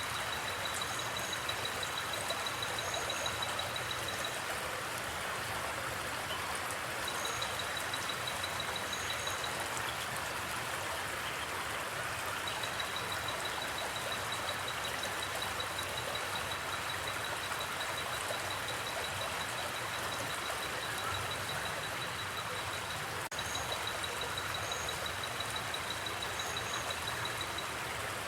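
Steady rushing of a river, with crickets trilling in long runs that stop and start, and a few short, high double chirps.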